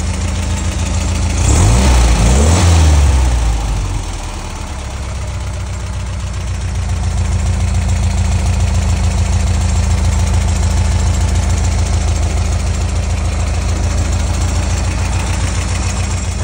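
1971 VW Super Beetle's air-cooled flat-four idling steadily through a new MagnaFlow muffler. There is one brief rev about two seconds in that rises and drops back to idle.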